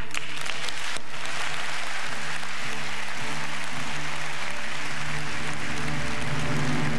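Audience applauding, the clapping rising about a second in, over background music with steady low notes.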